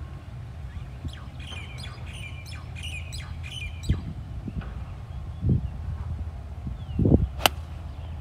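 Birds calling in a quick run of squawky chirps for a couple of seconds, over wind rumbling on the microphone. About seven seconds in comes one sharp click as the 5-iron strikes the golf ball.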